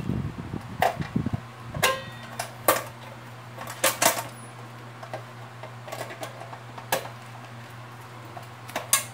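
Sharp, scattered clicks and taps of needle-nose pliers and tie wire against the plastic base of a bathroom scale as the wire is twisted, over a steady low hum that sets in about a second in.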